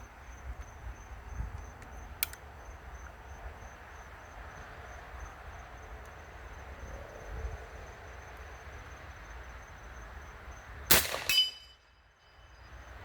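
One shot from an AEA Element Max .510 big-bore PCP air rifle about eleven seconds in: a sharp crack followed by a brief high ringing, typical of a steel target plate being hit. Insects chirr steadily throughout, with a faint click about two seconds in.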